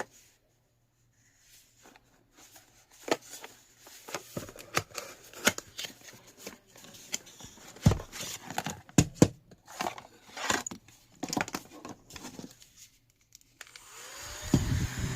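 Scattered clicks, taps and rustling of something being handled, then a small electric fan switches on about fourteen seconds in, rising briefly in pitch and settling into a steady hum with a breathy rush of air.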